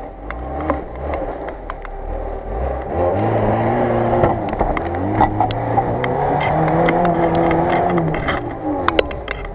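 Lada Niva's engine revving hard under load as the 4x4 pushes through tall grass up a slope. The revs climb about three seconds in, hold high with rises and dips, and drop away near the end, with scattered clicks and ticks throughout.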